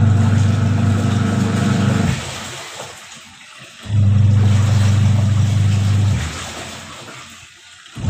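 Top-loading washing machine's wash motor humming in stop-start bursts, as in the agitation stage of a wash. It starts sharply twice and runs about two seconds each time, then trails off as the drive coasts down with water swishing. The repairer says the motor makes a noise in one direction.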